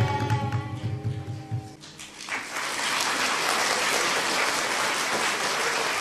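A children's blues song with guitar ends, its last notes dying away, and about two seconds in an audience breaks into steady applause.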